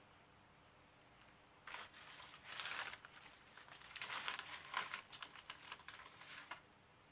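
Small pipe fittings being handled: an irregular run of clicks, scrapes and rustling for about five seconds, starting a couple of seconds in and busiest in two stretches.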